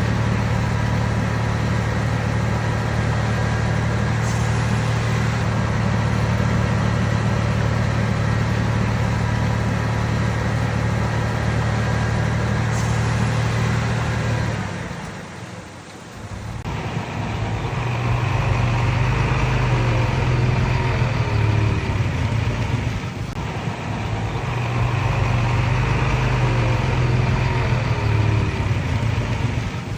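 Diesel engine of heavy earthmoving machinery running steadily. The sound drops away briefly about halfway through, then the engine runs again, its level rising and falling under changing load.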